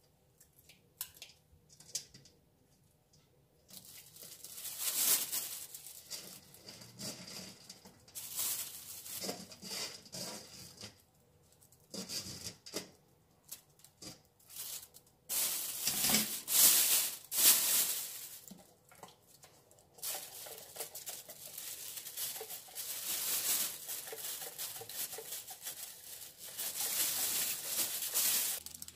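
Kitchen scissors snipping dried shredded squid: a few light clicks in the first seconds. Then a thin plastic bag rustles and crinkles in bursts, with short pauses, as the squid is dropped in and the bag is handled.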